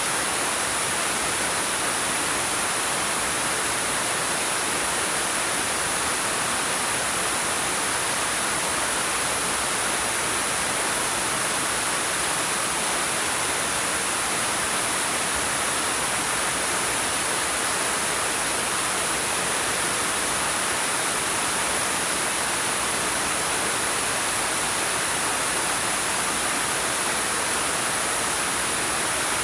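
Waterfall pouring over rocks: a steady, even rush of falling water with no breaks.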